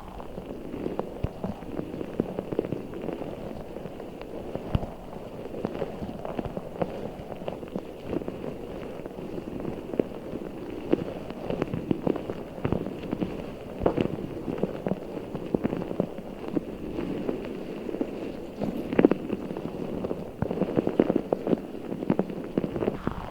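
A giant orbeez water-bead stress ball being squeezed and handled close to the microphone, making a continuous run of small crackles and clicks.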